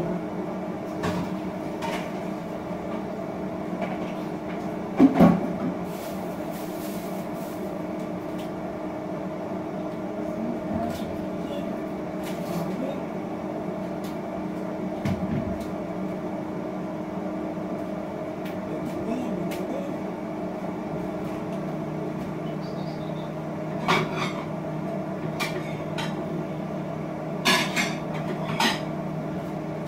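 Kitchen clatter: a few sharp knocks and clinks of dishes and utensils being handled, the loudest about five seconds in and several more near the end, over a steady electrical hum from an appliance.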